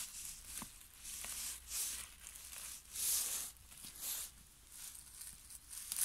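A hand raking through dry pine needles, twigs and lichen on the forest floor: irregular rustling and crackling scrapes, the loudest about three seconds in.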